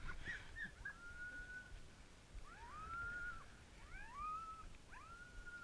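Sled dogs whining while the team is held at a stop: a series of high, drawn-out whines, each rising quickly and then holding steady, with a few short yelps between them.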